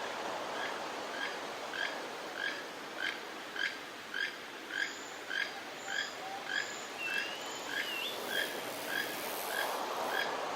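An animal giving a short call over and over, a little under two calls a second, over a steady wash of surf. Past the middle a brief whistle rises and falls once.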